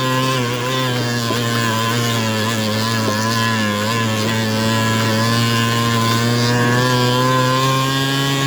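70cc big-bore two-stroke scooter engine running hard at steady revs under load on an uphill climb. Its pitch sags slightly a few seconds in, then holds.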